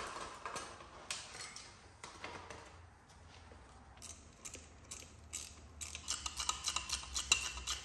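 Faint clinks and clicks of small hand tools on metal as a dirt bike's radiator mounting bolts are undone and its radiator hose clamp is loosened, ending in a run of quick clicks.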